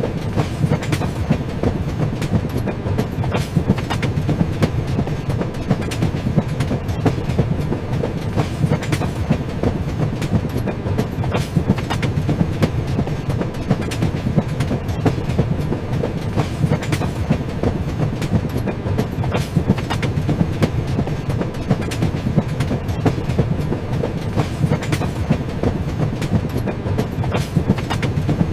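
A train running steadily on its tracks: a constant low rumble with the clickety-clack of the wheels passing over the rail joints.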